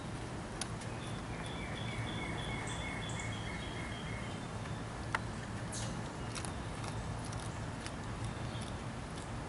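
Outdoor ambience with a steady low background hum, and a songbird singing a quick series of repeated high notes from about one to four seconds in. A single sharp click about halfway through.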